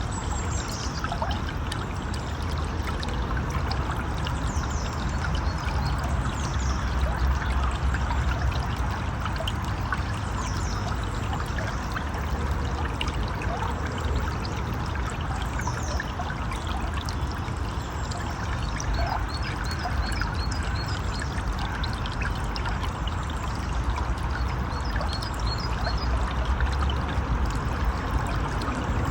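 Steady rushing and trickling of a river's flowing water, with short, high, falling chirps now and then and a quick run of repeated high chirps in the second half.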